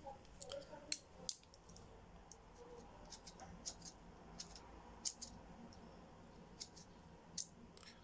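Faint, irregular small clicks and scratches of a Leatherman bit extender being handled and picked at to work its rubber O-ring off.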